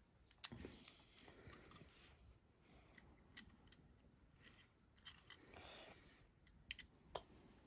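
Near silence, broken by a few faint, scattered clicks and light rustling as a small plastic toy is handled.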